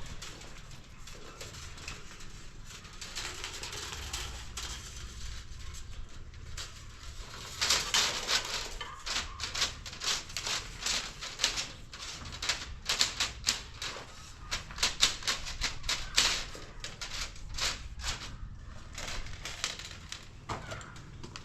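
A run of rapid, irregular sharp taps and clicks, sparse at first and coming thick and fast from about a third of the way in before thinning out near the end.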